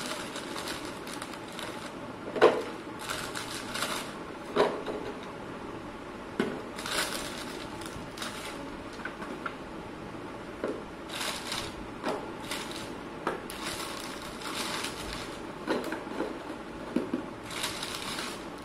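Plastic biscuit packet crinkling and rustling in the hands as biscuits are packed into a plastic box, with a few sharp clicks and knocks of the box.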